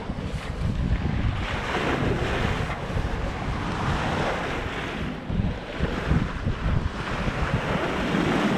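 Wind buffeting the microphone over the rush and splash of waves against the bow of a sailboat under way in choppy water.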